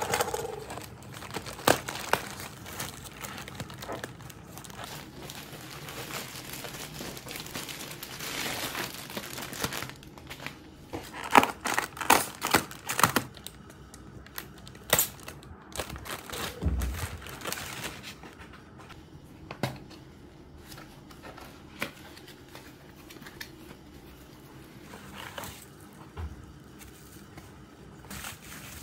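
Plastic parcel packaging (a poly mailer bag and an air-cushion wrap) crinkling and rustling as it is handled and opened by hand, with some tearing and irregular sharp crackles.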